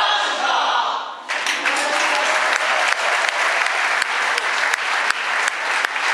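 A group of voices singing together, breaking off about a second in. An audience then starts clapping, with single sharp claps close by standing out from the steady applause.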